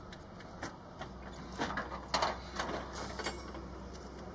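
Metal knocks and clanks from the door and rack of a munitions storage container being handled, several sharp knocks in the middle, over a faint low steady hum.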